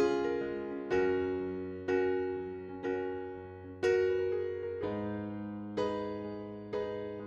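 Background music: electric piano chords struck about once a second, each ringing and fading before the next.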